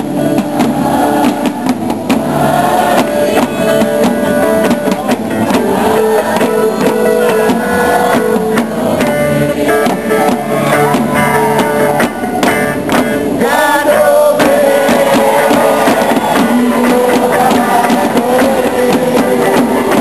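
Live Moluccan music: tifa drums beaten by hand along with voices singing.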